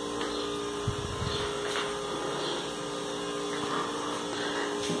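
Steady electrical hum, with a soft low thump about a second in.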